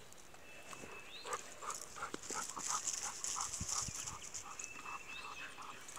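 A dog panting quietly in short, even breaths, about four a second.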